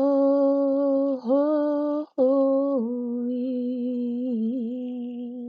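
A solo voice singing unaccompanied in a slow worship song, drawing out long held notes. The first note rises slightly about a second in, and after a short break about two seconds in the next note steps down. That lower note is held for about three seconds with a slight waver before it stops.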